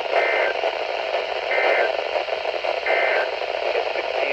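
NOAA Weather Radio SAME data bursts: three short buzzy bursts of two-tone digital code, about a second and a half apart, over a steady radio static hiss. Three brief bursts like these are the end-of-message code that closes an alert broadcast.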